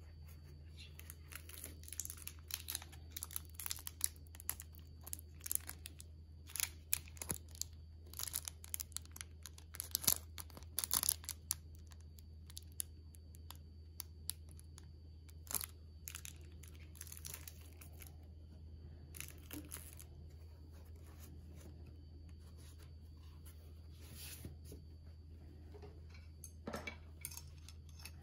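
Thin clear plastic accessory bag crinkling and crackling in the hands as it is handled and opened, thick with crackles for the first dozen seconds, then only now and then. A steady low hum runs underneath.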